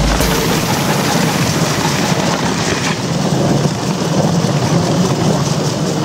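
Dog sled team on the move: a steady noisy rush of the sled and the huskies' paws running over snow.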